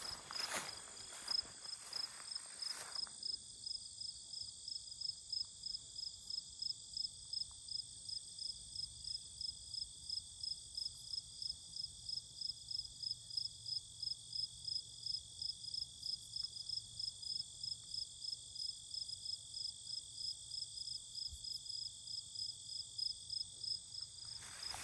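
Crickets and other meadow insects singing in a steady late-summer chorus: a high continuous trill under a regular pulsing chirp, a few pulses a second. Footsteps on a grassy path for about the first three seconds, then they stop.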